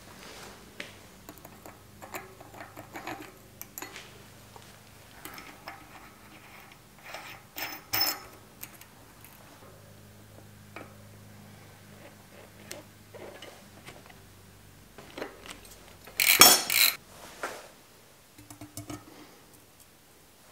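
Bicycle hub parts and hand tools clinking and clattering, metal on metal, while a rear hub is worked on and a disc brake rotor is fitted. There are scattered small clicks, a couple of sharper clinks about eight seconds in, and the loudest ringing metallic clatter about sixteen seconds in.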